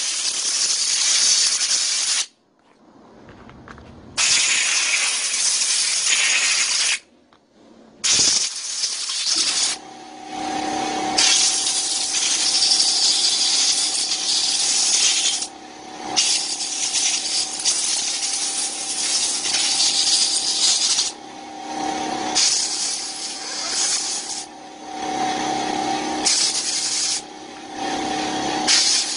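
Compressed-air blow gun blasting in repeated bursts of loud hiss, with short breaks, blowing solvent and dirt out of the cleaned parts of a two-stroke brush cutter carburetor. A steady hum joins in underneath from about ten seconds in.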